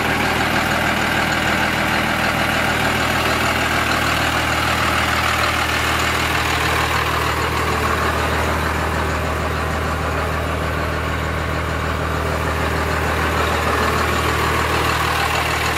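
1998 Dodge Ram's 12-valve 5.9-litre Cummins inline-six diesel idling steadily through a straight-piped exhaust.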